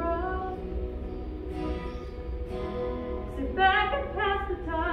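A woman singing a slow musical-theatre song, holding long notes.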